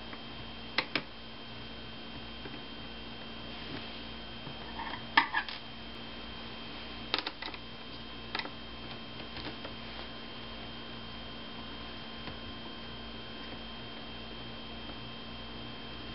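Scattered small clicks and taps of a screwdriver working the tiny screws that hold a laptop's LCD panel, over a steady electrical hum.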